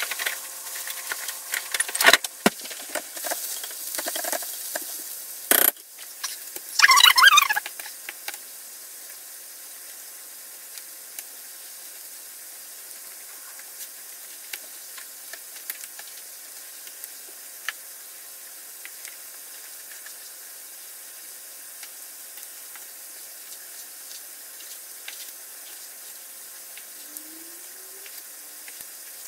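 A steady sizzling hiss of food cooking on the stove, under light ticks of a knife on a cutting board as raw chicken breast is sliced. The first several seconds hold clatter and knocks, with a louder burst of noise about seven seconds in.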